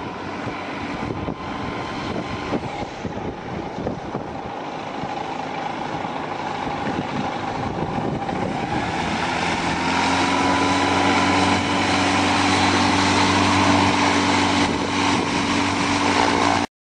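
Light airplane's propeller engine, a Zenith STOL CH 701, running with a steady drone over gusty wind noise on the microphone. The engine tone comes in about halfway through and grows steadily louder, then the sound cuts off suddenly near the end.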